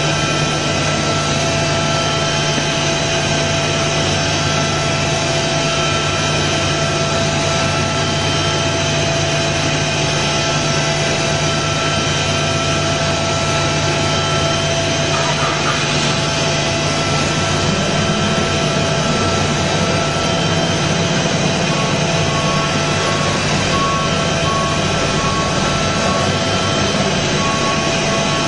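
Okuma MU-500 five-axis CNC machining center milling a ring-shaped metal workpiece in simultaneous five-axis motion: a steady machine-and-cutting noise with several high whining tones over a low hum. About halfway one whining tone drops out, and near the end a tone pulses about once a second.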